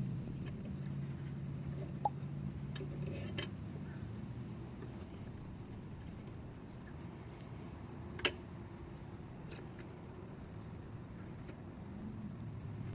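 A few sharp, isolated clicks of metal tool handling, the loudest about eight seconds in, over a low hum that fades away during the first few seconds.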